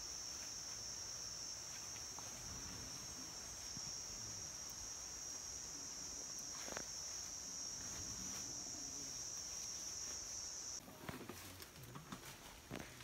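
Steady high-pitched drone of forest insects. It cuts off suddenly about eleven seconds in, leaving a few faint clicks and rustles.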